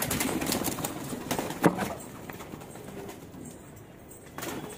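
Domestic pigeons cooing in a loft, with a few sharp clicks and knocks, the loudest about halfway through.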